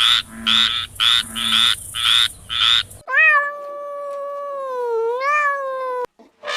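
A frog croaking in short pulsed calls about twice a second. After about three seconds it cuts abruptly to a cat's single long drawn-out yowl that dips and rises in pitch.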